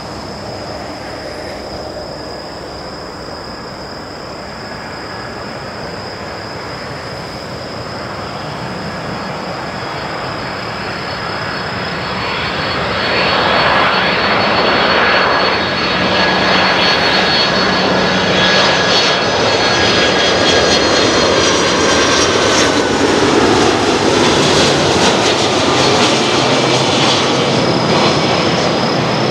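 Boeing 767-300F freighter's twin jet engines on landing approach, growing louder as the aircraft closes in and then passing low overhead. The jet noise swells sharply about thirteen seconds in and stays loud, with whining tones that fall in pitch as it goes by.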